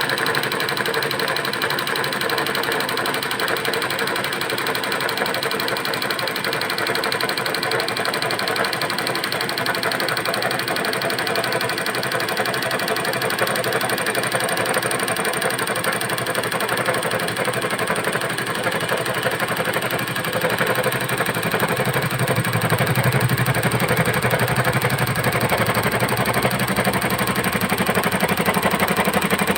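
Embroidery machine stitching, a steady fast mechanical chatter of the needle. It gets a little louder and heavier about two-thirds of the way through.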